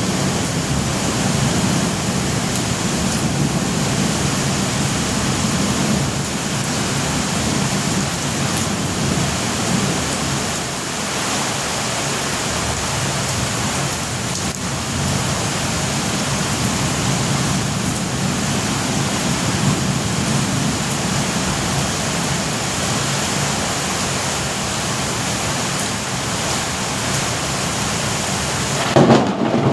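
Heavy rain falling steadily during a thunderstorm, with a low rumble of thunder beneath it. Near the end the sound changes abruptly and grows louder.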